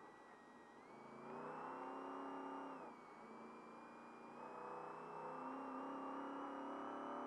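Race truck engine heard from onboard, revving up about a second in, easing off briefly near three seconds, then climbing again and holding as the truck accelerates, with a thin whine rising and falling in step with it.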